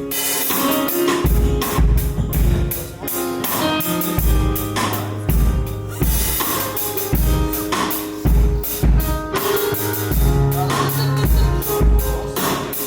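A band playing an instrumental passage with drum kit, bass and guitar, the drums hitting in a steady beat.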